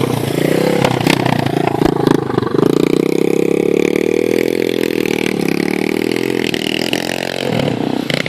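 Engine of an off-road vehicle running hard, the pitch climbing about two seconds in and holding, then dropping near the end and picking up again.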